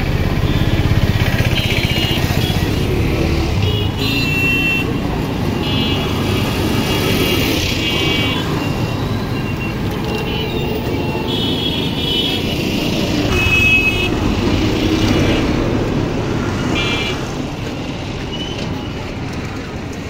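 Street traffic running steadily, with several short horn toots scattered through.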